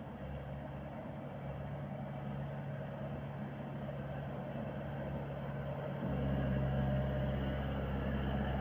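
Engine of a 35 hp wheeled skid steer loader running steadily, louder and deeper from about six seconds in.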